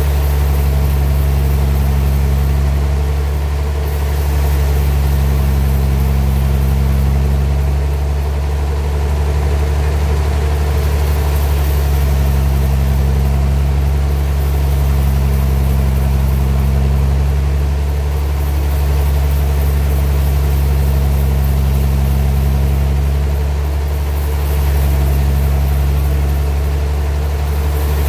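Sawmill engine running steadily with a low hum, its upper tones swelling and easing every few seconds.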